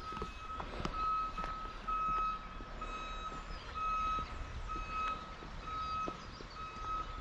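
Reversing alarm on a truck, beeping at a steady pace of about one beep a second.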